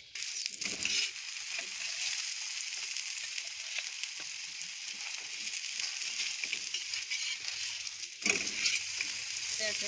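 Oil sizzling under a mooli (radish-stuffed) paratha frying on a hot iron tawa, a steady hiss. It gets louder about eight seconds in, when the paratha is lifted and moved on the griddle.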